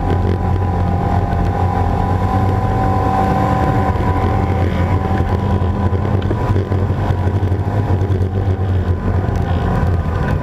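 Off-road vehicle's engine running steadily as it drives along a dirt trail, picked up by a camera mounted on the vehicle itself. A higher whine fades out about halfway through.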